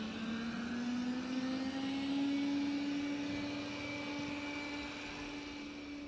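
A 360 S5 robot vacuum running while it cleans: a steady fan hum over a hiss, its pitch slowly rising over the first few seconds and then holding.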